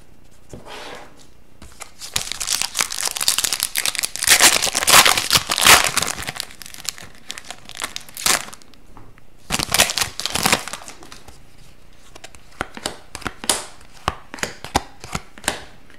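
Foil wrapper of a hockey card pack being torn open and crinkled, in long crackling stretches about two seconds in and again near the middle. Near the end the cards are fanned through by hand, giving short light clicks.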